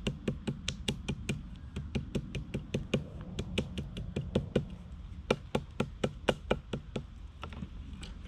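A quick, even series of sharp knocks or taps, about four to five a second, thinning out near the end.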